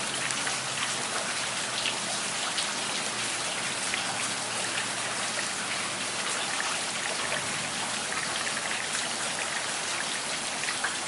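Steady rain from a summer thundershower falling on flooded pavement, with scattered individual drop impacts heard close by.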